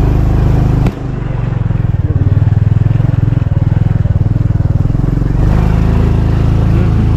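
Vehicle engine labouring on a steep, rough mountain track. About a second in it dips suddenly, then runs with a throbbing beat for several seconds before evening out.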